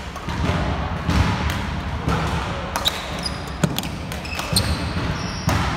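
Badminton rally: sharp racket hits on the shuttlecock and shoes squeaking on the wooden court floor, with low thuds of footfalls, echoing in a large sports hall.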